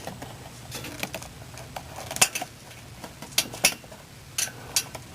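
Dry bird bones and feathers crunching and crackling as a metal hemostat grips and drags them out through a wall outlet, with metallic clicks and scrapes from the clamp. The sharp clicks come irregularly, a few closely paired.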